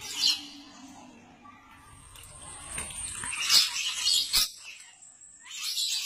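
Pet parrots calling with short, high chirps and squawks, coming in bursts: once just after the start, a cluster in the middle and again near the end.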